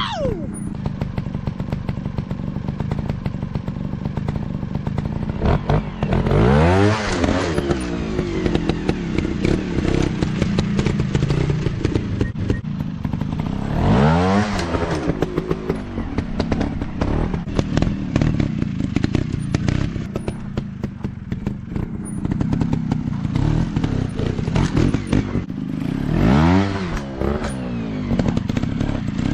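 Trail motorcycle engine running at a low idle, revved up and let back down three times.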